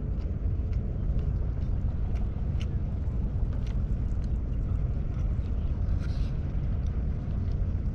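Steady low rumble with faint, light clicks scattered through it.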